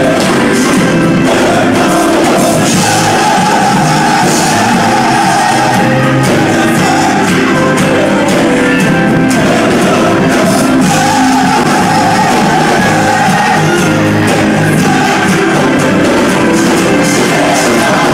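Church choir singing, loud and steady.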